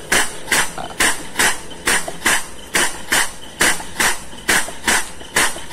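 Compressed-air-driven vacuum pump working steadily, giving a sharp puff about two and a half times a second as it sucks the leftover crude palm oil out of a tanker's cargo tank after the ship's own pumps can no longer draw it.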